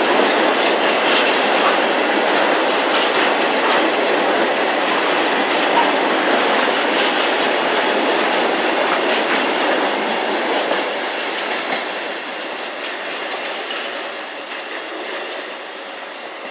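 Intermodal freight train's container wagons passing close, a steady rush of wheel and rail noise with repeated sharp clicks of wheels going over the track. The sound fades from about ten seconds in as the last wagon draws away.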